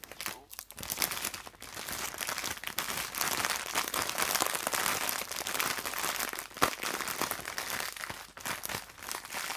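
Snack packaging crinkling and rustling in the hands as someone works at getting it open, with a sharper crackle about two-thirds of the way through.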